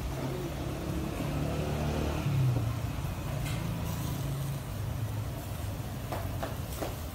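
A motor vehicle's engine running over street background noise, loudest about two and a half seconds in, with a few light clicks near the end.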